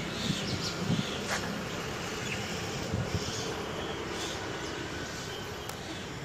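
Outdoor background: a steady low hum with a few faint high chirps.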